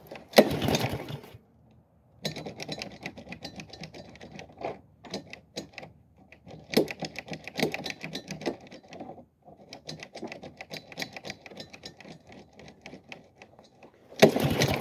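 Honda lawn mower engine being pull-started several times, turning over with fast, rattling ticks but not catching. It fails to fire; the owner blames a fuel-leaking, non-starting engine that needs parts.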